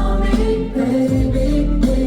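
Pop music with sung vocals over a heavy, steady bass, played loud through a venue's sound system at a sound check.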